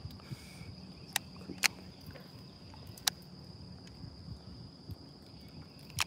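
Low water noise against the hull of an inflatable boat drifting on a lake, under a steady high-pitched whine. A few sharp clicks stand out, the loudest about a second and a half in.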